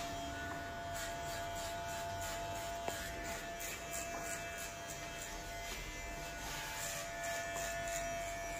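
VGR V682 electric hair clipper running steadily with an even whine while cutting hair.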